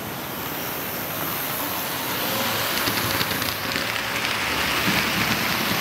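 HO scale DCC model locomotive running along the track under the load of its boxcars, its sound function turned off: a steady hum of the motor and flywheels with a faint crackling of wheels on the rails, growing louder.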